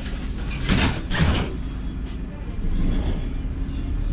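Interior of a LiAZ 5292.67 city bus, its YaMZ engine running with a steady low hum while the bus stands or creeps. Two short creaks or clunks from the bus body and fittings come about a second in.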